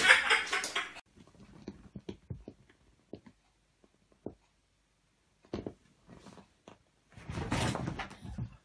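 Scattered soft taps and leather rustles, then near the end a second-long noisy scuffle as a startled cat scrambles off a leather armchair.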